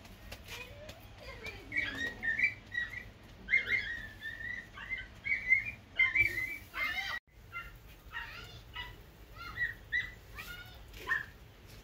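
Birds chirping: many short, bending calls, with a brief break about seven seconds in.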